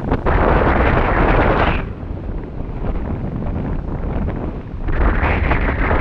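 Strong wind gusting straight onto the microphone, buffeting it with a low rumble. One gust blows for the first two seconds, eases off, then picks up again about five seconds in.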